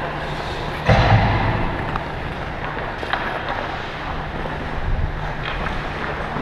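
Hockey skates gliding and scraping on rink ice, with wind rushing over the worn camera's microphone and a steady low hum underneath. A loud thump comes about a second in, followed later by a few sharp clicks.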